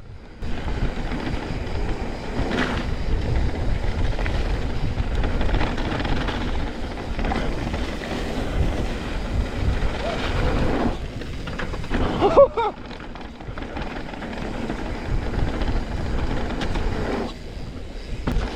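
Mountain bike descending a wet dirt trail: a steady rumble of tyres on the ground mixed with wind rushing over the microphone, easing for a moment about two thirds of the way through.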